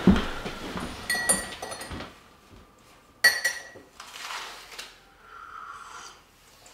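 A brief thump, then clinks of a spoon against a ceramic mug, each with a short ring; the sharpest about three seconds in. Near the end comes a soft sip from the mug.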